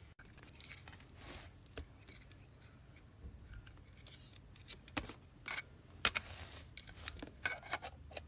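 Faint scattered clicks and short scraping sounds, as of small hard objects being handled, more frequent in the second half.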